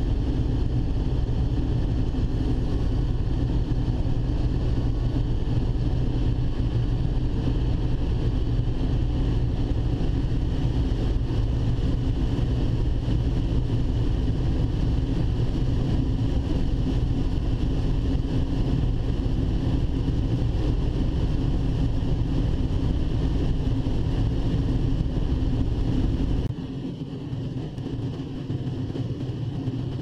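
Combine harvesting corn, heard from inside the cab: a steady engine and machine drone. About 26 seconds in, the sound drops and thins.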